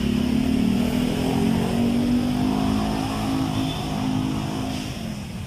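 A motor vehicle engine running nearby at a fairly steady pitch, fading away about five seconds in.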